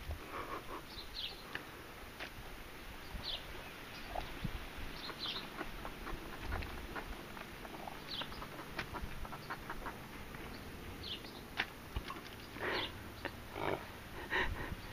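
A horse hiccuping: short, abrupt hics, the strongest a pair about a second apart near the end. Brief high chirps sound every second or two.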